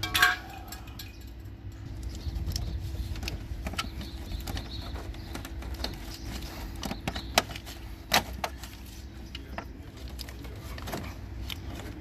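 Scattered clicks and knocks of gloved hands handling hard plastic engine-bay parts and connectors under a car's hood, over a low steady hum. The loudest knock comes right at the start, with sharper clicks a little past halfway.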